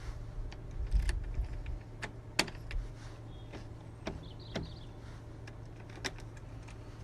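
Irregular clicks and clunks of a newly repaired multipoint door lock being worked, locking and unlocking with the door closed, over a low hum.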